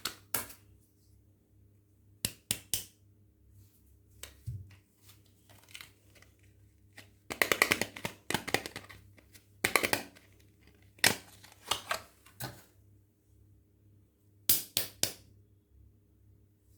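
Soap packaging being handled and unwrapped by hand: short, scattered bursts of crinkling and sharp snaps, with a denser run of crackling about halfway through and quiet pauses between.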